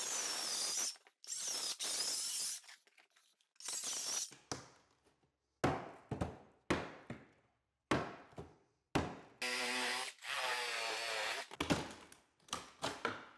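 Circular saw cutting down the center of an old pine floorboard, run in short bursts of about a second with a few knocks in between, then one longer run of about two seconds near the end with a wavering pitch. It is a relief cut to flatten a humped board.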